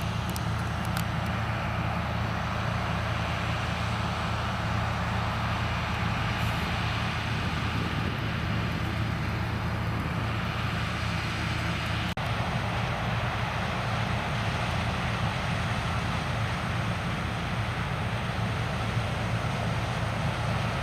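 Heavy diesel farm machinery running steadily during corn harvest: a constant low engine drone under a broad mechanical rush, with a faint click about twelve seconds in.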